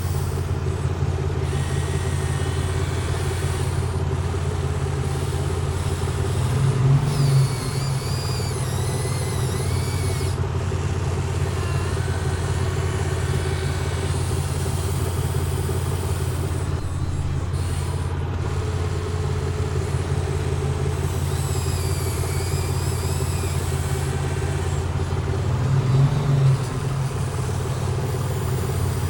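Excavator engine running steadily, with two brief louder surges, one about a quarter of the way in and one near the end. Faint wavering high-pitched tones come and go twice over the drone.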